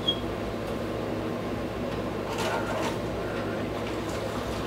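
Steady low room hum with a short high chirp just after the start and faint rustling around the middle.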